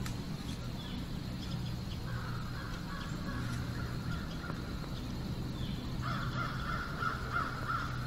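Hoarse bird calls in two runs of about two seconds each, the first about two seconds in and a louder one about six seconds in, over a steady low hum.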